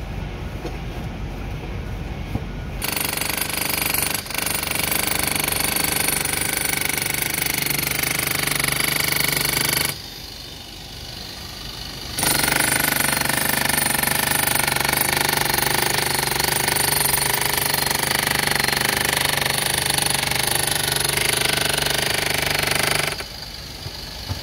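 Power tool hammering at masonry, running in two long stretches with a break of about two seconds in the middle.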